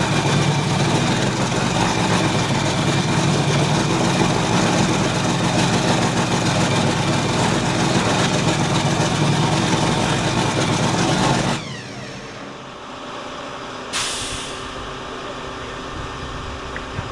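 Offshore racing powerboat engines running loud and steady, then cutting off abruptly about eleven and a half seconds in. A short, sudden hiss follows a couple of seconds later.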